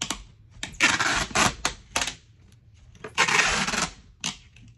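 Packing tape pulled off the roll in two long rips, about a second in and again just past three seconds, with short sharp snaps between, as it is pressed onto a cardboard Priority Mail box.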